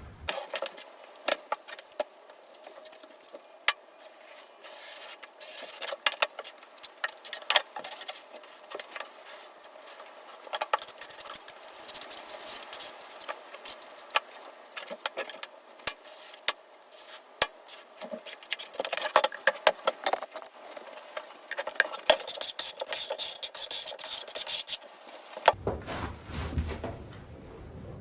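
Floor tiling work: a trowel scraping through thinset mortar, with many sharp clicks and taps from tiles and tools, in two busier stretches.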